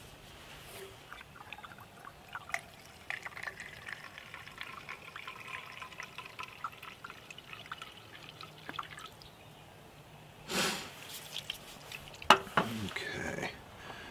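Denatured alcohol trickling from a fuel bottle into a Trangia spirit burner, a faint pouring and dribbling that lasts several seconds. Near the end come a few louder rustles and a sharp click as the bottle is handled and capped.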